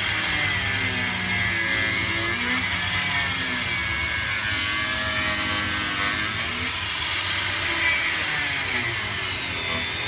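Angle grinder running under load against the fiberglass edge of a cut-out opening in a bus wall, grinding it back. Its steady whine sags in pitch and recovers several times as the disc bites in and eases off.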